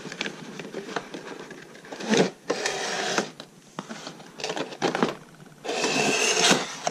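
A cardboard sleeve being slid off a paperboard display box, the card rubbing and scraping against card in several stretches, the longest about two seconds in and near the end.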